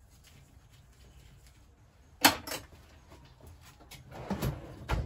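Metal tools clattering while being picked out of a workshop tool chest: one sharp clack about two seconds in, then more knocking and clattering near the end.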